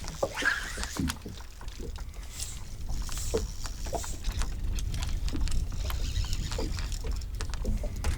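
A steady low rumble with scattered light knocks and ticks at no regular rhythm, typical of a small fishing boat on the water.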